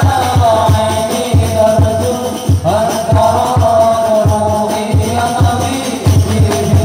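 Male voices singing an Arabic sholawat in unison over hadrah frame drums (rebana) beating a steady quick rhythm, about three strokes a second.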